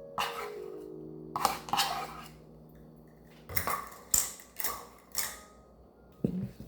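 A utensil clinking and scraping against a mixing bowl, about six short strokes, while mixing cake batter. Background music notes die away about halfway through.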